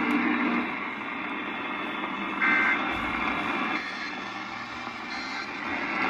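Radio receiver playing steady static hiss, with a low hum fading out in the first half second and a short high beep about two and a half seconds in.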